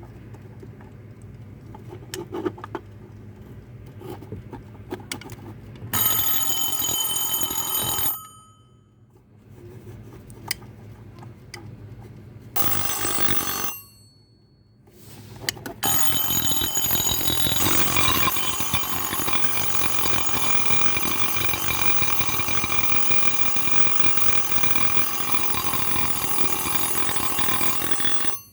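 Wind-up Westclox Baby Ben alarm clocks ringing their bells. After a few seconds of faint clicks, one rings for about two seconds, another rings briefly around thirteen seconds in, and from about sixteen seconds a long continuous ring runs until it cuts off suddenly near the end.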